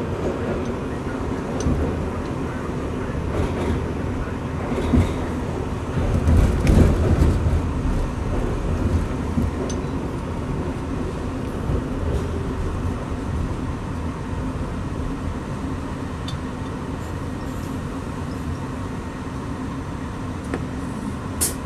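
Inside an R62A subway car as it pulls out of a station into the tunnel: a steady rumble of wheels on rail and running gear, swelling louder for a few seconds about a quarter of the way in. A short sharp click comes near the end.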